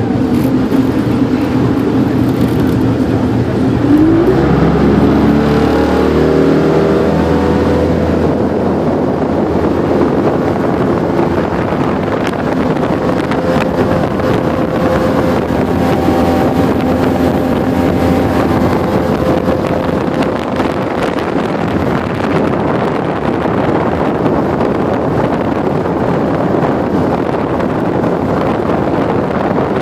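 Boat motor idling, then throttled up about four seconds in, its pitch rising before it settles into steady running at speed.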